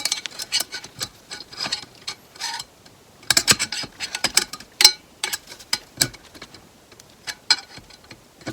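Irregular light metal clicks and clinks of 4L65E transmission clutch-pack parts (steel plates, clutches, snap ring) being handled and fitted in the drum, busiest in the middle.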